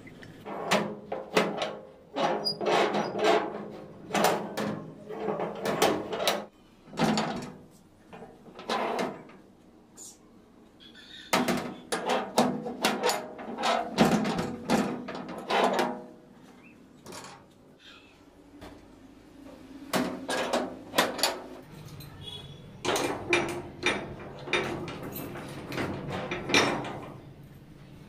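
Homemade steel sliding-bolt door latch worked by hand again and again: the bolt scrapes through its ring guides and clanks against its stops. The sounds come in short runs with quieter pauses between.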